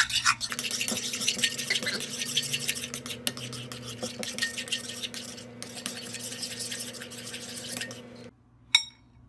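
Metal spoon stirring a thick glue and baking-soda slime mixture in a ceramic bowl, with busy scraping and clicking against the bowl that stops after about eight seconds. Two sharp clinks of metal on ceramic follow near the end.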